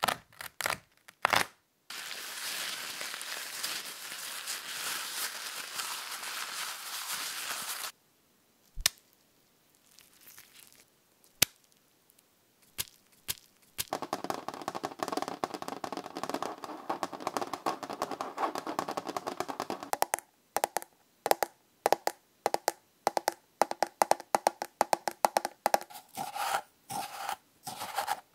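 A string of close-miked ASMR trigger sounds that changes about every six seconds: a few sharp taps on a paper towel or toilet paper roll, a steady crinkly rustle, some sparse clicks, a dense scratching rustle on a wooden tray, then rapid clicks and taps, with a spoon in a salt container near the end.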